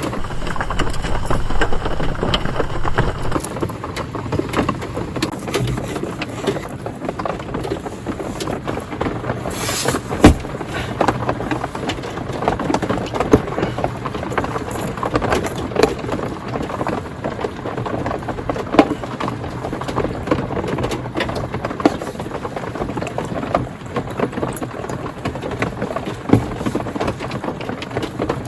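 Steady rain falling on a tarp, with many small crackling ticks, and one sharp knock about ten seconds in.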